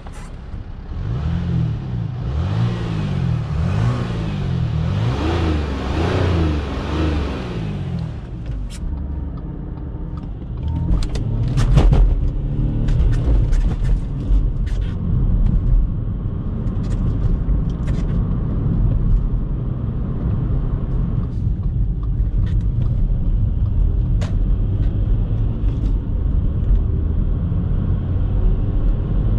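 Audi A4 B8 3.0 TDI V6 diesel engine heard from outside the moving car with wind and road noise, its pitch climbing and falling several times in the first eight seconds. After that it is heard from inside the cabin as a steady low engine and tyre rumble at low speed, with a few sharp knocks.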